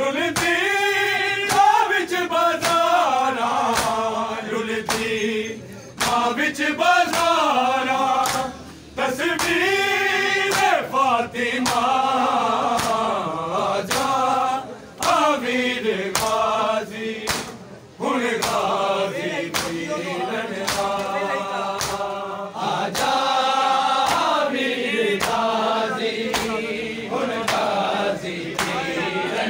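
Men's voices chanting a noha, a Shia lament, together in long rising and falling phrases. Sharp slaps of hands on bare chests (matam) run through it.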